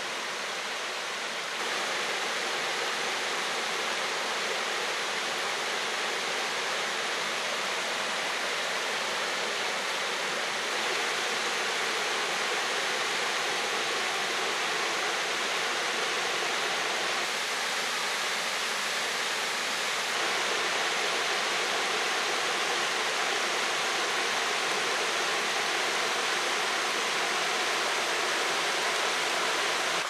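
Tannery Falls, a tall cascading waterfall on Ross Brook: a steady rush of water pouring and splashing over rock, growing slightly louder in small steps a few times.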